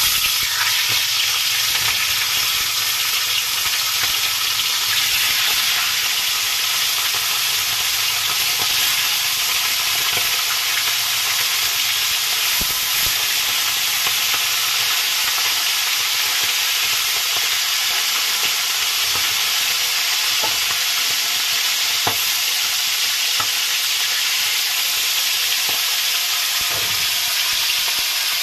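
Pieces of fish going into hot oil in a steel wok, setting off loud frying sizzle that starts suddenly and then holds steady as they fry.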